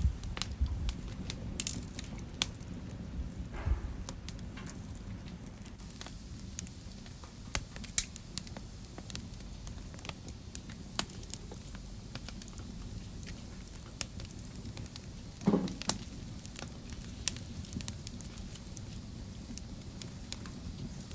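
Fire crackling in a fireplace: scattered sharp pops and snaps over a low steady rumble, with two louder pops about eight and fifteen seconds in.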